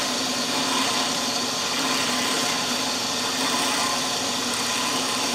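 Drill press spinning an end mill at top speed, cutting a pass along a wooden banjo-bridge blank held in a jig: a steady, even whirr with no breaks.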